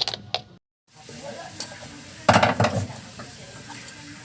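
Small metal parts and hand tools clinking and rattling while a distributor is taken apart: a few sharp clicks at the start, then a loud rattling clatter about two seconds in.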